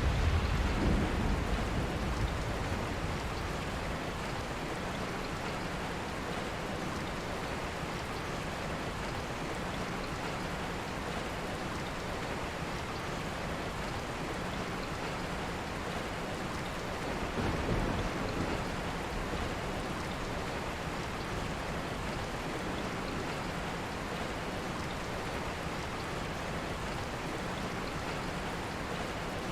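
Steady rain, with two low rolls of thunder. The first is fading over the first couple of seconds, and the second swells and dies away a little past the middle.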